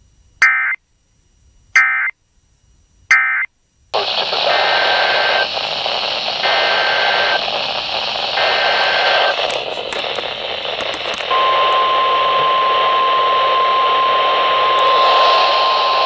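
Emergency Alert System data tones on a weather radio broadcast: three short bursts about a second apart, the end-of-message code closing the previous warning. Then steady radio static hiss with a faint on-off beep. About eleven seconds in, the steady 1050 Hz NOAA Weather Radio warning alarm tone starts, announcing a new warning.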